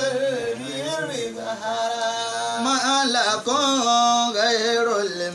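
A man chanting a slow sung melody, holding long notes that waver up and down, with short breaths between phrases.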